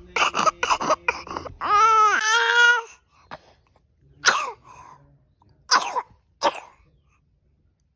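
A young child coughing, a quick run of short coughs at first and then single coughs, with a brief wavering cry between them. The mother blames the cough on fumes from an electric mosquito repellent.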